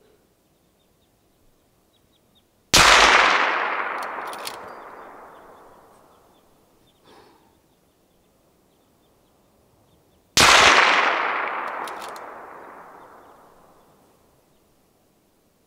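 Two rifle shots about seven and a half seconds apart, each followed by a long echo that dies away over about three seconds.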